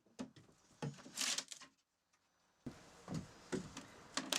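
A steel pry bar levering up wooden floorboards: a few separate knocks, creaks and a scrape about a second in as the board is worked loose.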